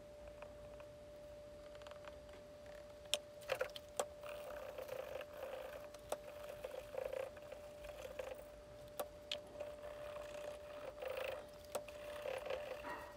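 Cotton cloth wiping excess epoxy filler off the outside of a repaired ceramic bowl, a soft rubbing that starts about three seconds in, with scattered light clicks and knocks against the ceramic. A faint steady tone hums underneath.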